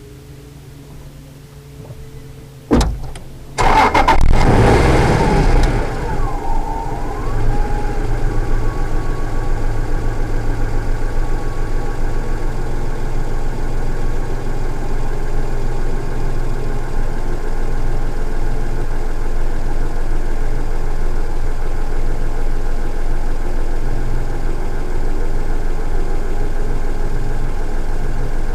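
Acura NSX V6 engine cranked and started about three seconds in, flaring loudly for a couple of seconds before settling into a steady idle.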